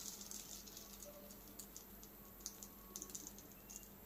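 Faint, irregular crackling and popping of coconut oil frying batter-coated Indian borage leaves on a hot cast-iron dosa tawa.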